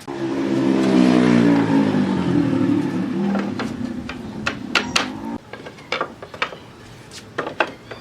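Electric woodworking power tool switched on suddenly, running with a hum that dips a little in pitch as it works, then shut off about five seconds in. Sharp knocks and taps of wood being handled follow.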